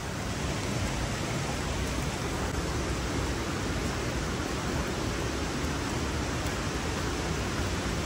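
Steady rush of water from a waterfall, an even, unbroken noise.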